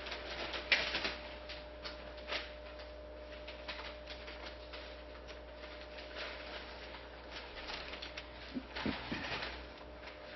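Paper rustling and scattered light handling clicks and taps, a sharper knock about a second in and another cluster near the end, over a steady faint electrical hum.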